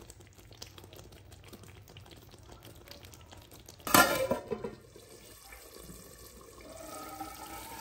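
An aluminium lid set down on a large aluminium cooking pot, one metallic clank about four seconds in that rings briefly and dies away. Faint scattered clicks come before it.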